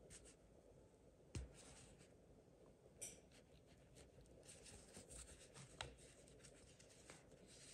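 Near silence, with a few faint clicks and rustles of a crochet hook and cotton yarn being worked through single crochet stitches.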